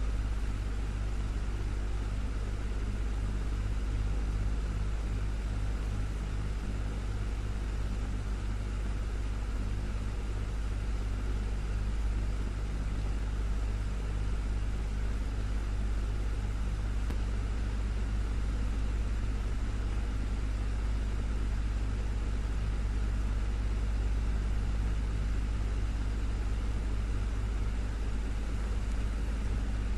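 Desktop electric fan running steadily: a constant low hum under an even rush of air.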